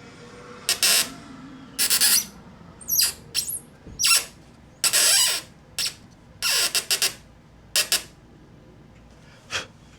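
Threaded insert being turned by hand into a Hobie kayak's plastic hull molding, making a series of short, irregular squeaky scraping strokes, with a last single stroke near the end.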